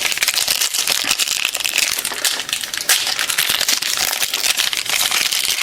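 Foil trading-card pack wrapper crinkling and crackling as it is torn open and handled.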